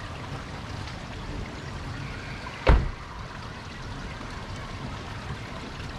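Rear door of a Toyota Prius taxi pulled shut from inside, one heavy thump about two and a half seconds in, over a steady rushing background noise.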